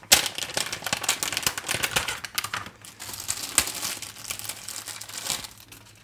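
Plastic packaging bags crinkling and rustling as USB-C cables are pulled out of them. The crackle is densest in the first few seconds and thins out toward the end.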